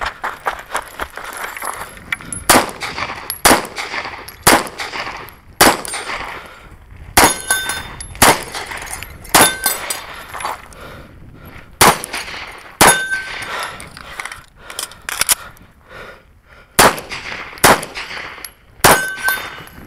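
Gunshots fired one at a time, about one a second, with a quicker cluster of three or four about two-thirds of the way through; the later shots come from a CZ SP-01 pistol. Several shots are followed by a brief metallic ring of a steel target being hit.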